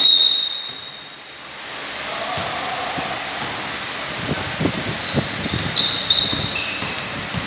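Sneakers squeaking on a hardwood basketball court, with low thuds of a bouncing ball and running feet. A loud squeak comes right at the start, then a quieter stretch around a second in, then more short squeaks and thuds.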